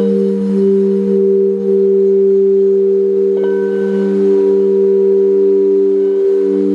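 Crystal singing bowls played with two mallets: several steady, overlapping tones ringing together, swelling and wavering. About halfway through a light strike adds a brighter, higher ring.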